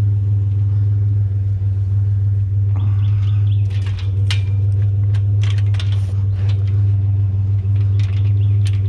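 A truck engine idling with a steady low hum. Over it, metal bed-frame rails clank, rattle and clink as they are worked apart and handled, in a cluster of knocks a few seconds in and again near the end.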